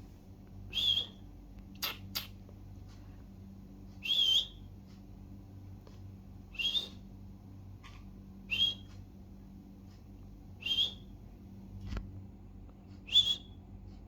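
Budgerigar giving short chirping calls, six in all, each a quick bent note roughly two seconds apart. Two sharp clicks come about two seconds in, and another near the end.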